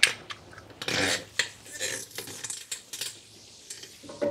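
Irregular metallic clinks and clatter of a brake caliper and pads being fitted onto the front brake bracket, a handful of sharp knocks a second or so apart.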